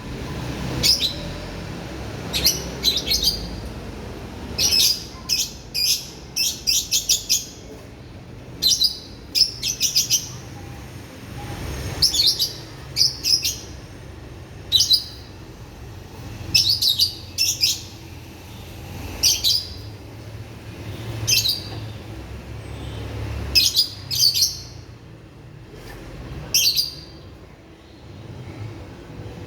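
Lovebird giving short, high-pitched chirps, singly and in quick clusters every second or two, over a low rumble in the background.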